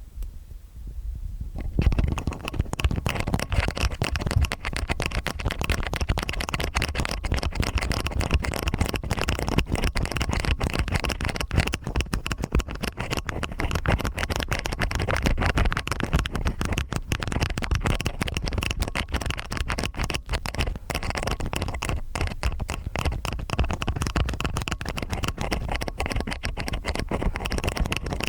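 Stainless steel ear pick scraping and scratching in the ear, close-miked: a dense, continuous run of fine scratches that starts about two seconds in.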